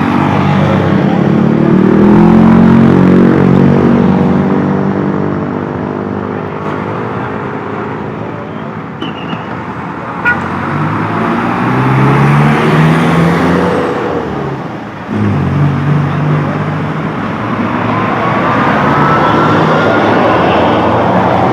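Road traffic passing close by: engines of large vehicles swell and fade, loudest about two seconds in and again past the middle. A faint rising whine comes near the end.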